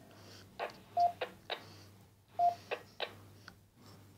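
A series of sharp clicks from an air rifle scope being handled and turned, with two short beeps, about a second in and about two and a half seconds in.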